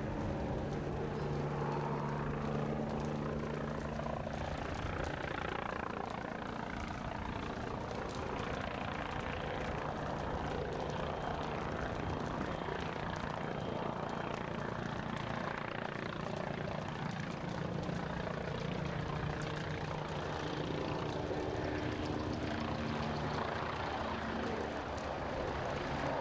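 Helicopter carrying a slung water bucket flying in: steady rotor and engine noise with a low hum.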